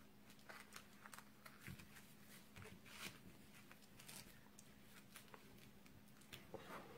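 Near silence: faint rustles and light ticks as a satin ribbon and a cardstock panel are handled and the ribbon is wrapped around the card, over a low steady hum.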